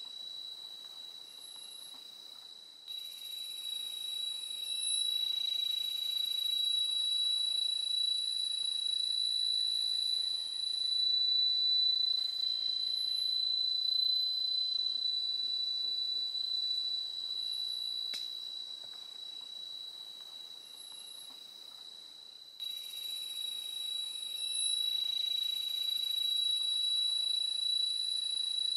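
Rainforest insects calling: a steady high-pitched whine throughout, with a fuller, hissing insect chorus that starts suddenly about three seconds in, dies away near the middle, and starts suddenly again later.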